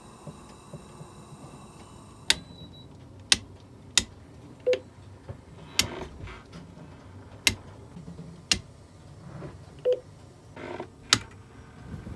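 Toggle switches on a Hallberg-Rassy yacht's electrical switch panel being flicked on one after another: about seven sharp clicks at uneven intervals, with two short beeps in between.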